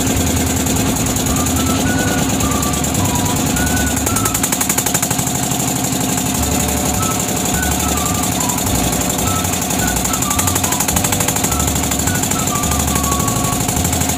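Fishing boat's inboard engine running steadily, a fast, even knocking chug with a low hum under it.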